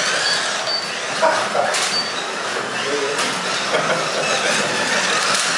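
1/24-scale Carrera Digital slot cars running around the plastic track: a steady whirring of small electric motors and wheels in the slots.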